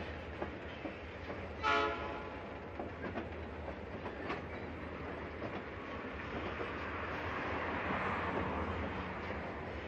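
Freight train moving slowly through a rail yard: a diesel locomotive runs with a steady low rumble, the wheels click over the rail joints, and a short horn toot sounds about two seconds in. The train noise swells a little in the last few seconds.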